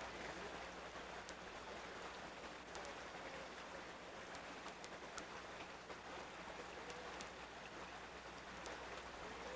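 Shallow creek water running steadily over gravel and rocks.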